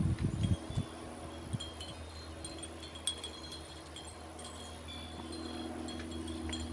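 Faint steady ringing tones, like wind chimes, with a few soft knocks in the first second and a sharp click about three seconds in as a glass and pot are handled on a carpeted tabletop.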